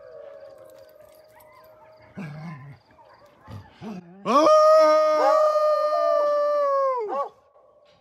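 Dog howling: a faint drawn-out note, then one long loud howl that rises at the start, holds steady for about three seconds and falls away at the end.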